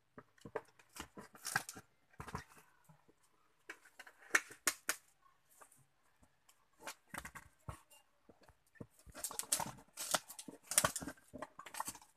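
Knife blade slicing and scraping through plastic wrap and packing tape on a plywood crate lid, in short irregular strokes, busiest toward the end.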